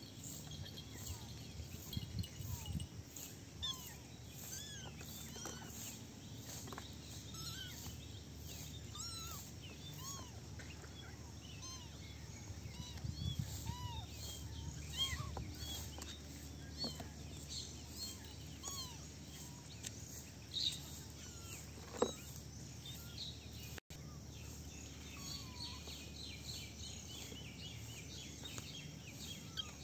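Outdoor ambience: many short, scattered chirping calls of small birds, over a faint, evenly pulsing insect drone. A few soft low thumps and one sharp click sit among them.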